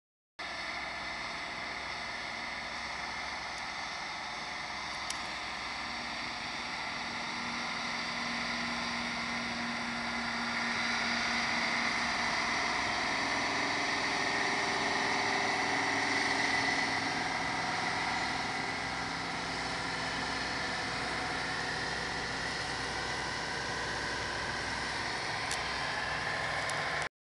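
Diesel engines of heavy trucks running at low speed: a heavy-haul tractor unit under load hauling a wind-turbine tower section on a low-loader, with a dump truck alongside. The engine note shifts in pitch and grows louder toward the middle, then eases off.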